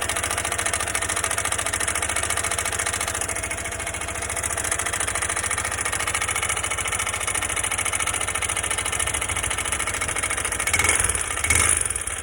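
Honda XR 190 single-cylinder engine running at idle with an abnormal mechanical noise that the owner cannot identify, on a bike under four months old. The engine briefly picks up twice near the end.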